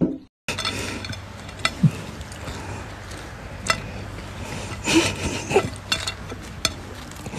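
A plate being handled, with a few light clinks over a steady low hum. Short pitched voice-like sounds come about two seconds in and again around five seconds in.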